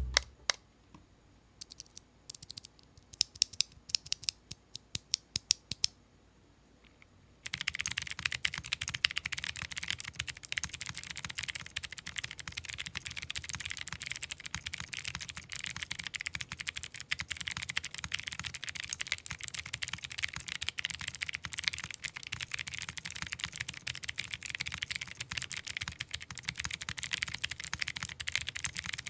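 Akko Creamy Cyan clicky mechanical keyboard switches, factory-lubed with polycarbonate housings and a click jacket on the stem, in a Topo 2.0 keyboard with top-mounted aluminium plate and no foam. Single keystrokes spaced apart for about the first seven seconds, then continuous fast typing; super clacky.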